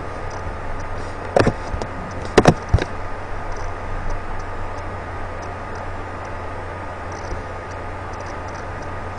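A few sharp computer mouse clicks, about one and a half and two and a half seconds in, over a steady background hiss with a low hum.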